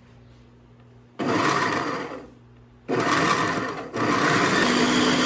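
Food processor pulsed twice, about a second each, then run continuously, its blade chopping onion, Scotch bonnet pepper, herbs and liquids into a wet jerk marinade.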